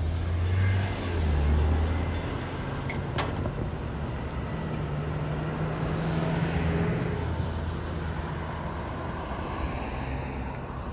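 Cars and a pickup truck driving over a railroad grade crossing, engines humming low and tyres on the road and rails, with one sharp click about three seconds in.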